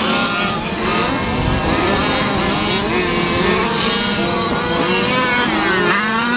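Several 1/5-scale petrol RC cars' small two-stroke engines running on the track, revving up and down over one another, with one sharp rev sweeping up and down near the end.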